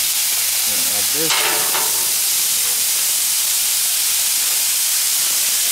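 Food sizzling steadily on a hot flat-top griddle. About a second and a half in, the sizzle swells briefly as diced carrots and sweet potatoes are tipped onto the hot steel.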